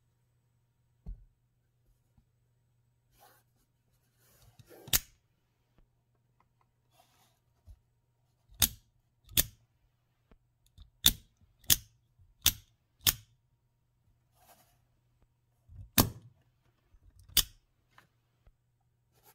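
Grindworx Coffin Blaster 2.0 dual-action out-the-front automatic knife, its spring-driven blade firing out and snapping back into the handle with sharp metallic clicks, about nine in all, mostly in out-and-back pairs with a quick run of them in the middle.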